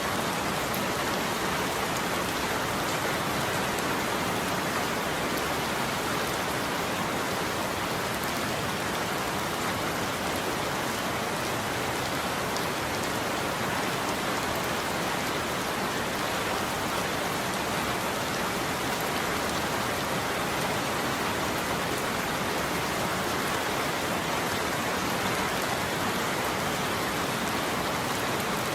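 Steady heavy rain falling, a dense even hiss with fine scattered drop ticks.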